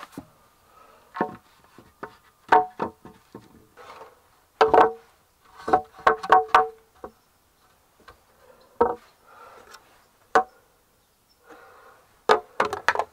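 Pine boards being set down and knocked onto log joists, a spirit level laid on them. The knocks come singly and in quick clusters, each with a brief hollow ring from the board.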